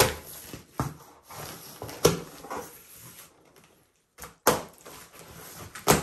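Packaging and boxed furniture parts being handled and moved: about five sharp knocks and thumps, the loudest near the start, at about 2 s, at about 4.5 s and near the end, with rustling and scraping between.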